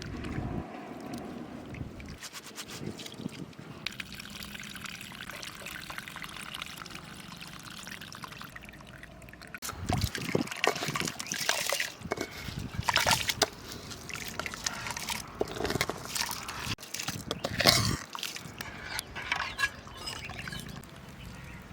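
Liquid trickling and sloshing in a cooking pot, steady at first, then from about halfway through broken by irregular splashes and knocks.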